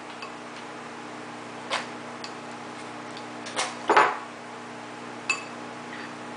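A spoon tapping and scraping in a ceramic bowl: a handful of light separate clicks, the loudest about four seconds in, one about five seconds in with a short ring, over a steady low hum.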